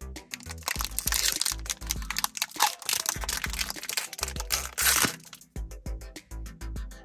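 Plastic snack wrapper crinkling and tearing open, from about a second in until about five seconds in, over background music.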